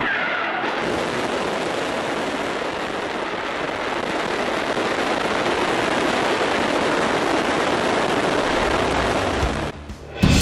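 Rocket engines running at liftoff, a dense rushing rumble that starts suddenly and grows slightly louder, then cuts off shortly before the end as music with a beat comes in.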